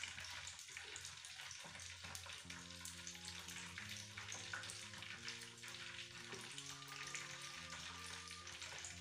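Faint, steady crackling hiss of hot cooking oil sizzling, under soft background music whose sustained notes come in about two and a half seconds in.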